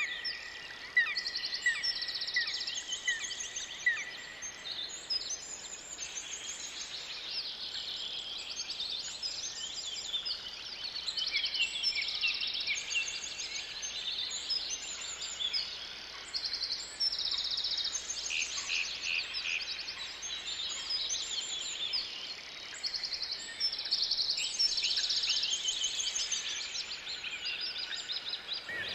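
A dense chorus of many songbirds singing at once, with overlapping trills and chirps throughout, over a faint steady hiss.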